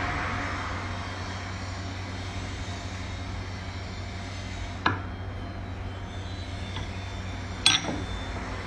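Two sharp knocks over a steady background hum, about five and eight seconds in; the second is louder and rings briefly. This is a forged steel spearhead being handled and set down on a tabletop.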